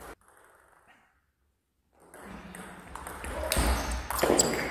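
Table tennis rally: the plastic ball ticking sharply off the bats and the table, several quick hits in the last second or so, over the murmur of a sports hall. About a second in, the sound drops to dead silence for under a second.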